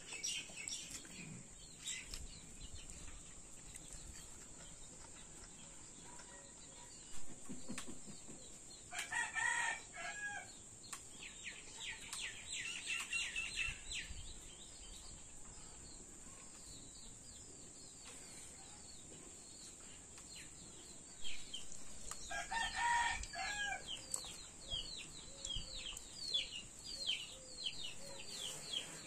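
Rooster crowing twice, about nine and twenty-two seconds in, among small birds chirping in quick falling notes, over a steady high-pitched hum.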